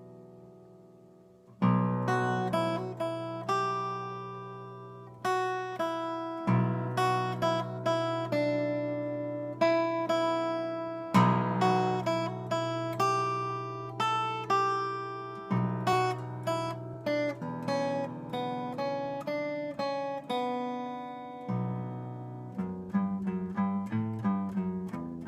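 Agile Renaissance 8X eight-string guitar heard acoustically, its chords picked note by note and left to ring. A faster run of single notes comes near the end.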